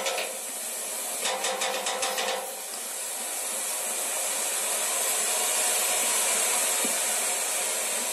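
A steady hiss that becomes louder and smoother after about two and a half seconds, with a run of quick clicks a little over a second in.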